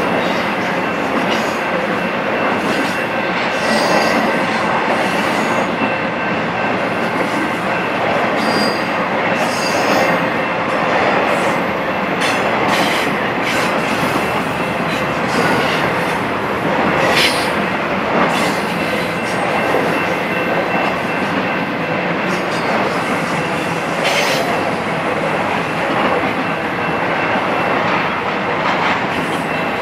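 Intermodal freight train cars rolling past: steady noise of steel wheels on rail, with a high, steady wheel squeal over it and scattered sharp clicks and clanks from the wheels and couplings.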